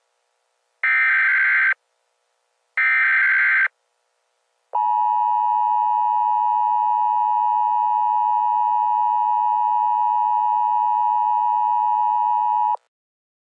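Emergency Alert System SAME header: two of its three short digital data bursts, each about a second long and a second apart, announcing the start of a new alert. Then the EAS two-tone attention signal (853 and 960 Hz together) sounds steadily for about eight seconds and cuts off sharply.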